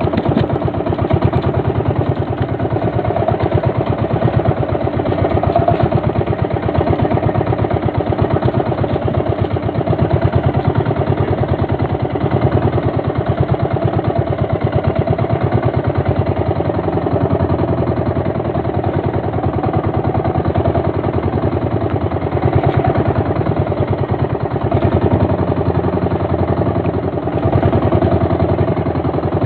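A small fishing boat's engine running steadily, with a fast, even beat.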